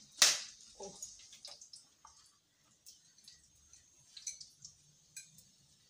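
Kitchen utensils being handled: a sharp clink about a quarter second in, a few lighter clicks and taps over the next second, then only faint scattered ticks.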